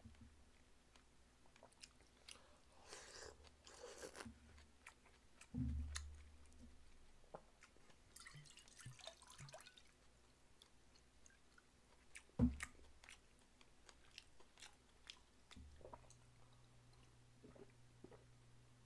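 Faint chewing of pork kimchi stew with scattered small clicks and a soft thump. Around halfway, makgeolli is poured from a plastic bottle into a metal bowl, followed a few seconds later by a single sharp knock, the loudest sound.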